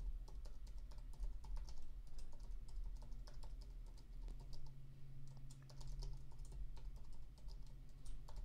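Quiet typing on a computer keyboard, a quick, uneven run of keystrokes, over a low steady hum.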